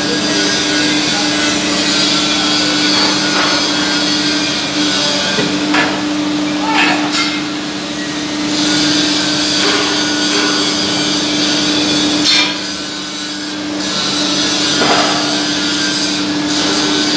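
Workshop machinery noise: a steady machine hum under a constant noisy wash, with a few short knocks and clicks about six, seven and twelve seconds in.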